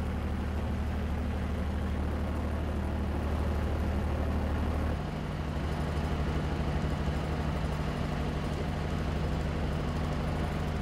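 A heavy engine running steadily with a low hum, settling to a slightly different pitch about five seconds in.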